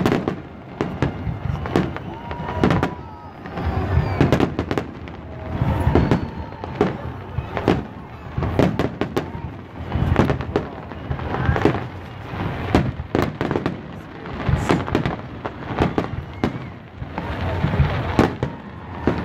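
Aerial fireworks display going off in a continuous barrage: repeated bangs from shells exploding overhead, with crackling between them.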